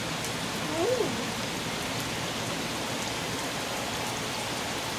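Heavy rain falling and pattering on surfaces, a steady hiss. A person's voice makes one brief sound about a second in.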